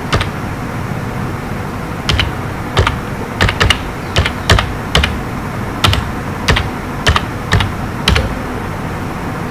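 Computer keyboard keys clicking as a short phrase is typed at an unhurried pace: about a dozen separate keystrokes with uneven gaps between them, over steady background noise.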